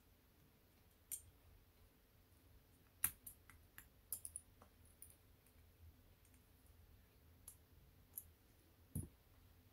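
Scattered light clicks and taps of small plastic and metal carburetor parts being handled and fitted back into a motor scooter's carburetor body, the sharpest about three seconds in. Near silence between them.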